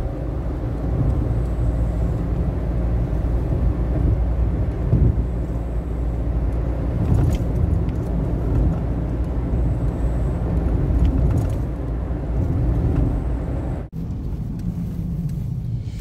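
Car cabin noise while driving: a steady low rumble of engine and tyres on the road. About fourteen seconds in it breaks off abruptly and goes on as a slightly quieter drone of the same kind.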